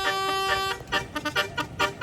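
A bus's 18-trumpet, 18-note telolet musical air horn playing a tune: one long held note, then a quick run of short toots in the second half.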